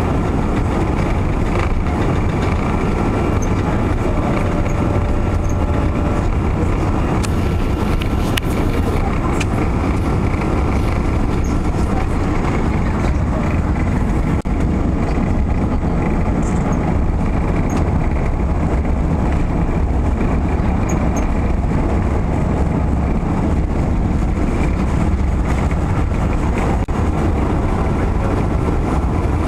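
Steady, loud cabin noise of an Airbus A380 on its takeoff roll, its four turbofan engines at takeoff thrust, heard as a deep, even rumble inside the passenger cabin.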